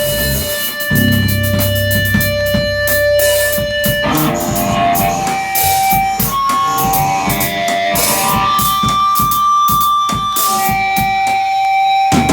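Live band music led by electric guitar: held notes ringing over picked strings, the notes changing about four seconds in.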